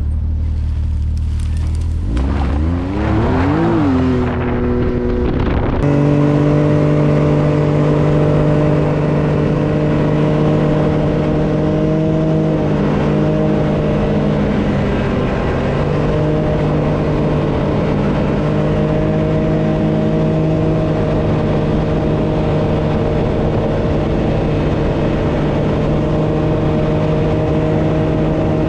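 Vehicle engine revving up in a couple of rising sweeps, then running at a steady speed as the vehicle cruises.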